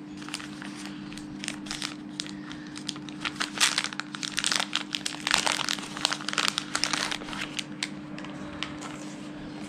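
Plastic packaging crinkling in the hands as a wrapped accessory is handled and unwrapped: irregular crackles, thickest in the middle, over a steady low hum.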